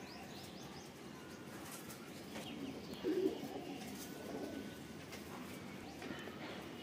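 Domestic pigeons cooing quietly, with low coos about three seconds in and again a second or so later.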